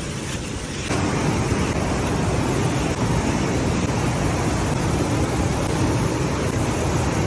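Fish frying in hot oil, a steady sizzle that jumps louder about a second in, as when food goes into the pan.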